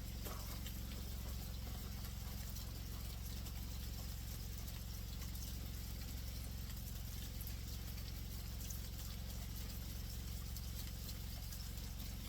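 Steady crackling sizzle of meat coated in pancake mix frying in hot oil, over a constant low hum.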